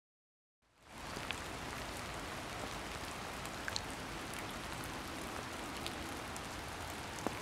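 Steady rain falling, an even hiss with a few scattered drop ticks, starting suddenly out of total silence just under a second in.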